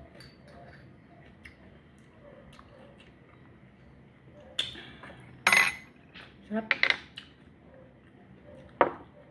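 Dishes and utensils being handled: faint small clicks, then a few loud knocks and clinks in the second half, one with a bright ringing tail.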